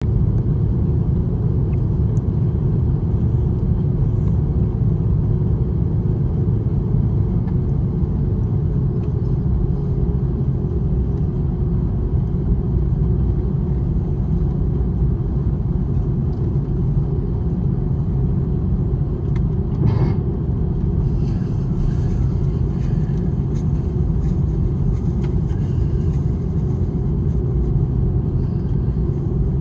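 Airbus A330-300 airliner's jet engines, a steady low rumble with a faint hum; a single click about twenty seconds in.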